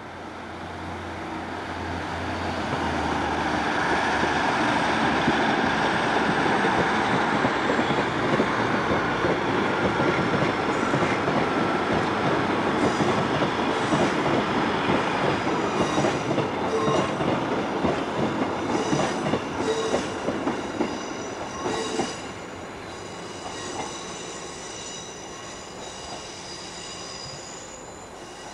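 Diesel multiple-unit train running slowly past: a rumble that swells over the first few seconds, then wheels clicking over rail joints. High-pitched wheel squeal comes in near the end.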